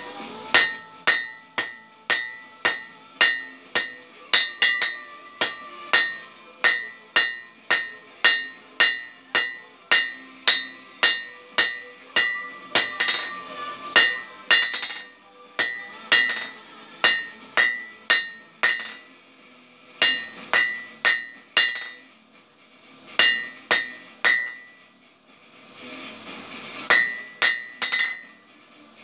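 Blacksmith's hand hammer striking a red-hot steel bar on an anvil, about two blows a second. The anvil rings after each blow. In the second half the blows stop for a few short pauses.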